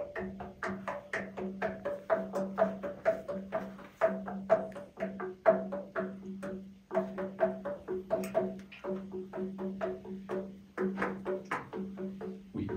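Cave stalactites struck by hand, ringing out in a few clear, wood-block-like notes, about three strikes a second in short runs with brief pauses.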